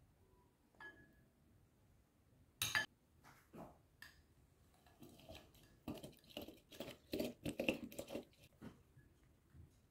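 One sharp clink about three seconds in, then from about five seconds in a quick run of irregular scraping, squeezing strokes as a lemon half is pressed and twisted on a small plastic hand citrus juicer.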